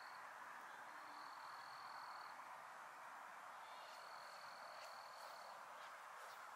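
Faint chorus of insects calling at dusk: a thin, steady high trill that sounds in stretches of a second or two, stops and starts again, over a steady hiss.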